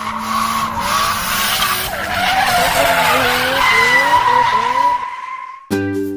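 A vehicle skidding with its tyres squealing over a wavering engine note; it cuts off suddenly shortly before the end as a ukulele-like tune begins.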